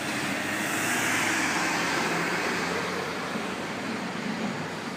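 Road traffic at a busy city intersection: a steady rush of vehicle noise that swells over the first couple of seconds and then eases off, with a faint low hum of engines beneath.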